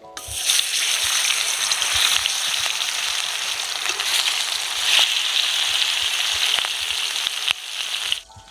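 Salted, turmeric-rubbed tuna pieces sizzling loudly as they fry in hot oil in a metal kadai. The sizzle starts as the fish goes into the oil and cuts off suddenly near the end.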